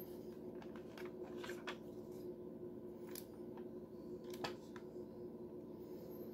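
Handling of an HK P7 PSP pistol and its case: a handful of light clicks and knocks, the sharpest about four and a half seconds in, over a steady low hum.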